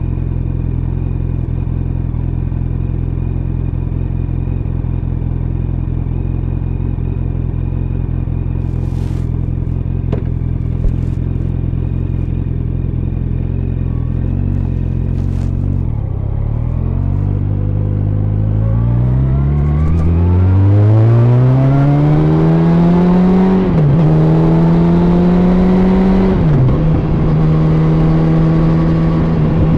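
Yamaha FZ1's inline-four engine idling steadily at a stop, then revving up as the bike pulls away a little past halfway through. Two quick drops in pitch near the end mark upshifts, and it settles to a steady cruise. It is heard through layers of jacket, from a phone in a pocket.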